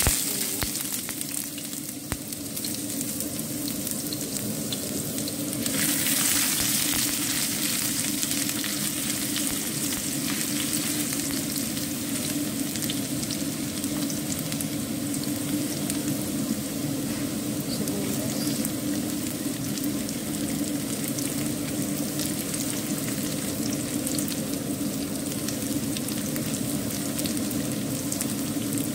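Julienned ginger sizzling steadily in hot oil in a wok, frying on high heat, the sizzle growing louder about six seconds in.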